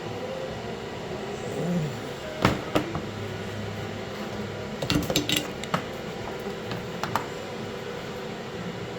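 Metallic clinks and knocks from handling a freshly welded steel exhaust test pipe: two knocks a few seconds in, a quick cluster about halfway through, then a couple more, over a steady background hum.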